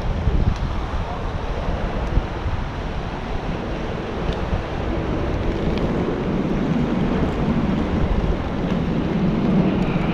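Wind buffeting the microphone, a steady low rumble, with the wash of the sea beneath and a few faint clicks.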